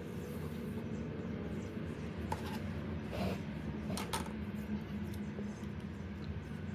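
Scissors snipping loose thread ends, a few short sharp clicks, over a steady low hum.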